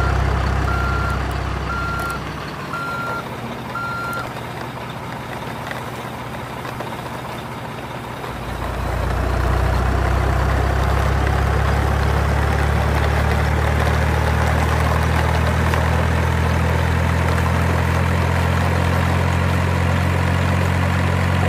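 Heavy truck reversing alarm beeping about once a second over a running truck engine, the beeps stopping about four seconds in. From about eight seconds in the engine comes up louder and runs steadily.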